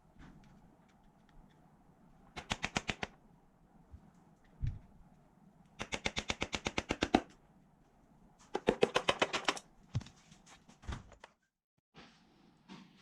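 Three bursts of rapid, even clicking, about ten clicks a second, from a tool undoing bolts on an engine being taken apart, with a few single clicks and knocks in between.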